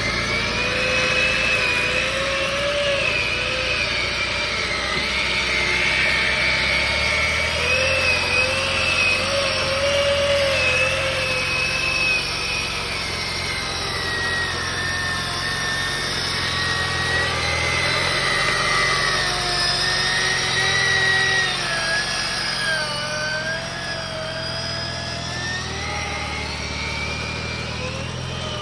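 Electric front winch on a Land Rover Defender 90 reeling in under load to pull the vehicle out of a muddy pond: a continuous motor whine whose pitch wavers and sags with the strain. The engine runs low underneath.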